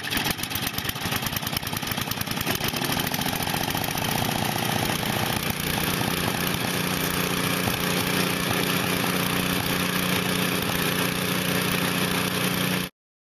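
A 5-horsepower two-stage snowblower's small engine running loud, about 98 dB on a sound level meter. It is uneven for the first couple of seconds, then settles into a steady note. The sound cuts off abruptly near the end.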